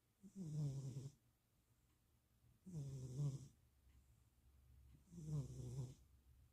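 A sleeping domestic cat snoring softly: three short, rhythmic snores about two and a half seconds apart, each under a second long.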